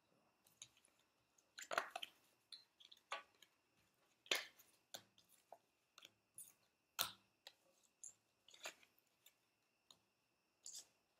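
Playing cards being handled and set down on a glass tabletop: quiet, irregular light clicks and taps, a few of them louder.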